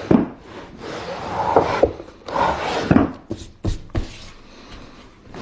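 A hand tool scraping across wood in a few long, even strokes, with short sharp knocks a little past halfway.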